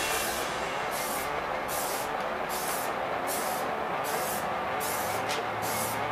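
Aerosol spray-paint can hissing in repeated short bursts as black paint is sprayed onto a plastic RC truck body.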